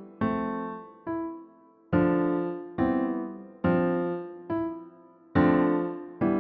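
Keyboard music: piano-like chords struck one after another, a little more than one a second, each ringing and fading before the next, with no drums.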